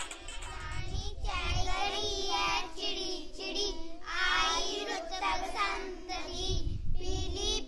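A group of young schoolchildren singing a poem together, their voices rising and falling in a sing-song line with short breaks between phrases.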